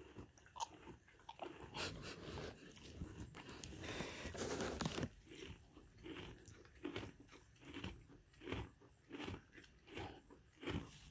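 Miniature donkey chewing hay close up: crisp crunching bites and the rustle of dry hay, settling in the second half into a steady chew of about three crunches every two seconds.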